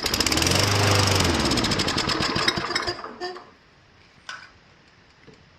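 Toro push mower's single-cylinder engine starting and running on fuel squirted down the carburettor, then dying after about three seconds. A single click follows in the quiet.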